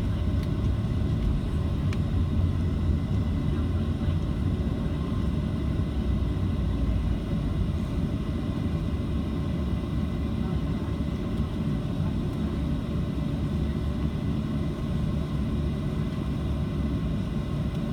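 Steady low rumble of a Boeing 737-700's CFM56-7B jet engines and airflow, heard from inside the passenger cabin, with a faint steady whine above it.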